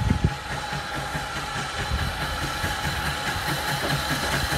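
Steam locomotive working a goods train toward the listener, its exhaust beats coming evenly about three to four a second and growing slightly louder near the end. A single sharp knock sounds right at the start.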